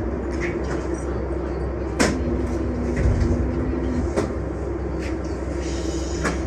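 Steady rumble of a Calgary CTrain light-rail car heard from inside the car, with three sharp clicks about two seconds apart.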